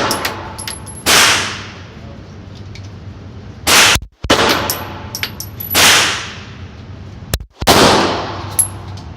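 Five pistol shots, roughly two seconds apart, each followed by a ringing echo, with small metallic clinks between the shots.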